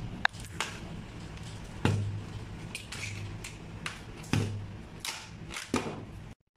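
Hard plastic toy figures clacking and knocking together in a mock fight: a scatter of sharp clicks, with a heavier thump about two seconds in and another past four seconds.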